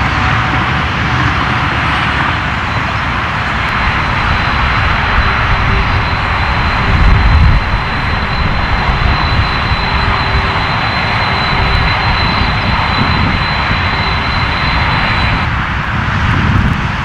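Jet airliner's engines running loud and steady, with a thin high whine that drops out near the end. There is a brief low surge about seven seconds in.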